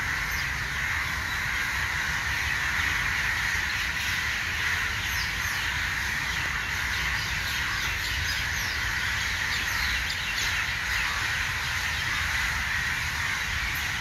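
A large flock of birds calling together at dusk as they gather over the trees to roost: a dense, unbroken chatter of many overlapping calls at a steady level.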